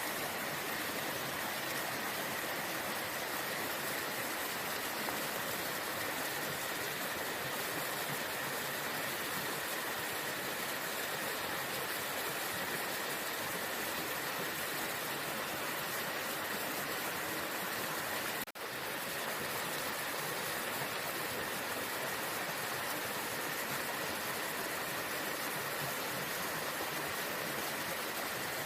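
Steady rush of a waterfall, with a momentary dropout about two-thirds of the way through.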